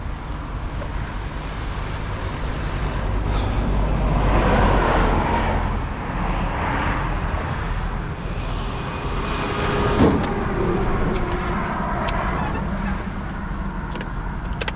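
Highway traffic rushing past at speed, swelling as vehicles go by about four seconds in and again a couple of seconds later, with a single sharp knock about ten seconds in.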